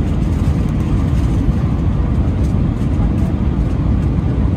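Steady, loud low rumble of an Airbus A319's CFM56 turbofan engines and airflow, heard from a window seat inside the passenger cabin, with a faint light rattle on top.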